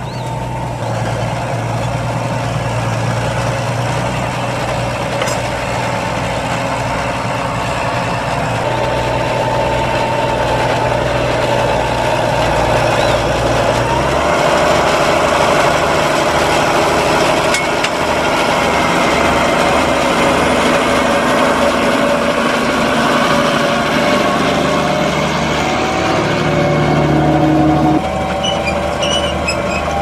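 Deutz-Fahr Agrotron 6165 tractor's diesel engine running steadily under load while pulling a reversible plough and furrow press through the soil. The engine note shifts about halfway through and the level drops a little near the end.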